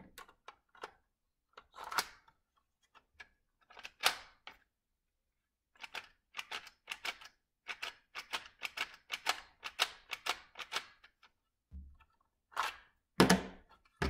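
Plastic Lego bricks clicking and knocking as a brick-built Lego pistol is handled. A run of quick clicks comes in the middle, and a few heavier knocks come near the end as it is set down on a Lego baseplate.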